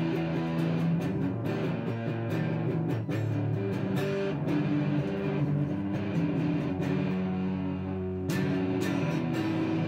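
Electric guitar strummed with a pick, playing held chords that change every second or two.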